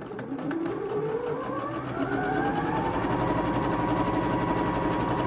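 Janome HC8100 computerised sewing machine stitching a seam in chiffon, with the fast, even clatter of the needle strokes. Its motor whine rises in pitch over the first few seconds as it speeds up, then holds steady.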